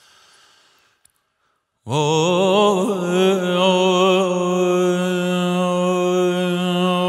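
Solo male voice chanting a Persian monajat in dastgah Homayun. After a near-silent pause with a faint hiss, the voice enters about two seconds in on a rapidly wavering, ornamented note, then holds a long steady note.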